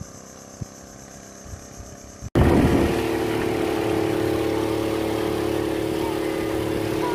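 A few faint knocks, then an abrupt cut about two seconds in to a boat motor running steadily at constant speed with a loud, even hum.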